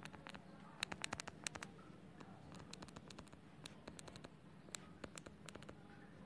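Stylus tip tapping and scratching on a tablet's glass screen during handwriting: faint, irregular clicks, with a quick run of them about a second in.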